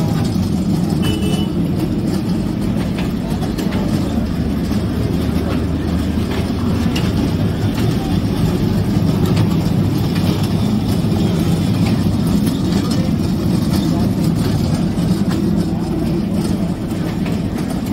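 Kiddie train ride running on its circular tubular steel track: a steady low rumble of the wheels and drive.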